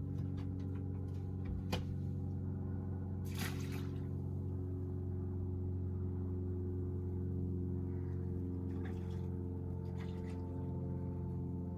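Steady low mechanical hum made of several even tones, like a running engine, with a brief splash about three and a half seconds in as the mullet is dropped back into the water.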